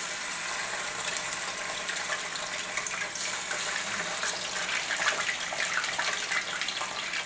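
Soy-sauce-coated chicken drumsticks frying in hot oil in an electric skillet: a steady sizzle with many small crackles as the pieces go in.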